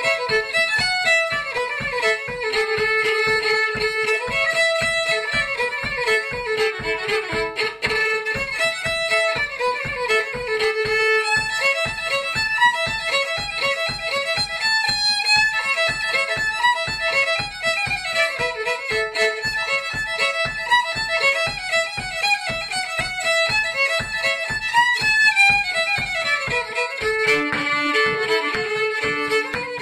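Solo fiddle playing a tune with a steady stream of quick bowed notes, moving up and down without a break.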